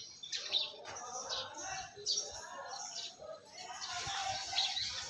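Close-up eating sounds: shells of boiled shellfish clicking as they are pried apart by hand, mixed with wet sucking and chewing, in a string of irregular clicks and smacks.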